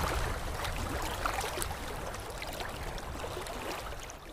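Sound effect of a channel logo intro: a steady rushing noise flecked with small crackles, fading away near the end.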